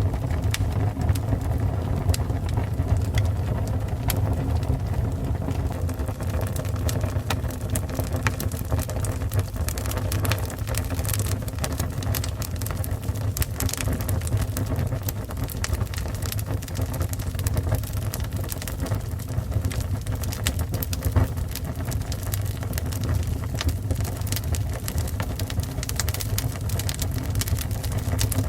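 Fire burning: a steady low rumble with frequent small crackles and pops.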